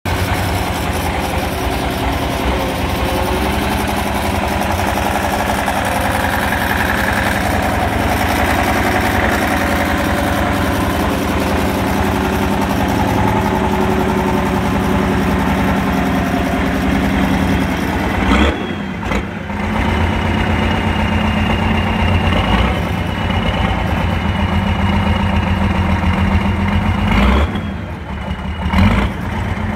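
Off-road trial truck's diesel engine running hard under load as it crawls up a steep dirt mound. The engine note breaks and changes about two-thirds of the way in and again near the end. A high thin whine runs over the engine in the latter part.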